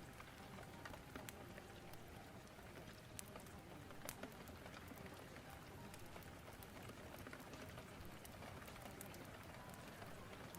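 Rain storm ambience: steady, faint rain hiss with scattered small sharp crackles and pops, as of a fireplace burning.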